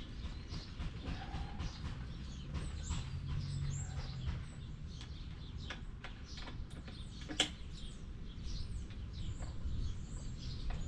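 Small birds chirping repeatedly in short high calls over a low steady rumble, with one sharp click or tap about seven seconds in.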